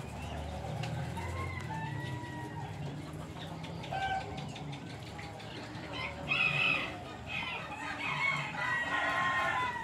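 Farmyard fowl calling, with a long, drawn-out crow-like call about a second in and another near the end, and shorter calls between.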